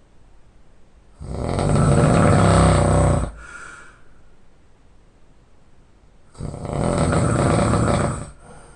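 Heavy snoring: two long, loud snores about five seconds apart, each lasting about two seconds and followed by a brief, fainter breath.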